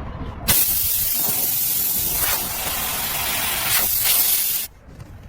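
Compressed gas hissing out of a nozzle during a car tyre repair: a loud, steady hiss that starts about half a second in and cuts off sharply about four seconds later.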